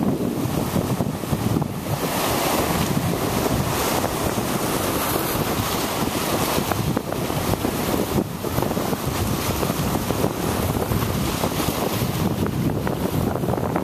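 Strong wind buffeting the microphone over the wash of surf on a beach, a steady, gusty roar.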